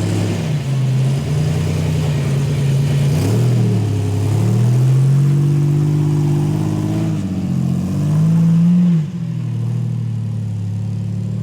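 Off-road vehicle's engine revving up and down in repeated bursts while climbing a steep rock obstacle. The highest, loudest rev comes about nine seconds in, then cuts back sharply.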